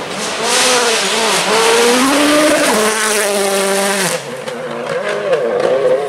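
Rally car at full attack on a gravel stage: its turbocharged engine revs hard, climbing through the gears with a sharp drop in pitch at each shift, over the hiss of tyres on loose gravel. About two-thirds of the way through the revs fall away and the sound dips, then the engine picks up again near the end.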